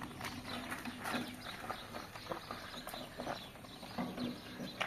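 Irregular light knocks and taps at an uneven pace.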